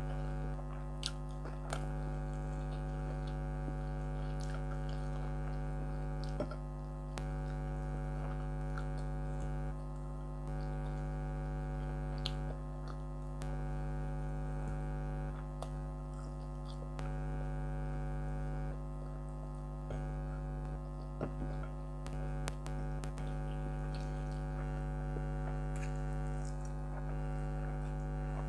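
Air conditioner running with a steady hum, over soft chewing and occasional small clicks of eating by hand.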